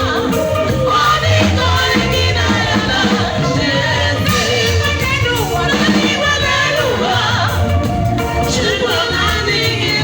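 Women singing together over live band music, with a bass guitar playing low held notes under them.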